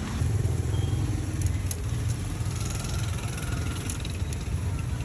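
A steady low rumble like engine noise, with a few light metallic clicks from tongs on a grill grate.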